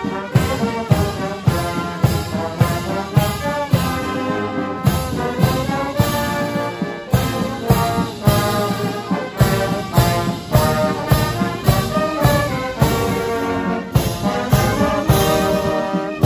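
Military marching band playing a march on the move: trombones and other brass playing chords over a steady drumbeat of about two beats a second.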